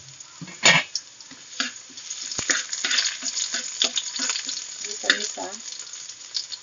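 Chopped garlic sizzling in hot oil in a metal wok, with a spatula scraping and tapping against the pan as it is stirred. The loudest scrape comes about half a second in.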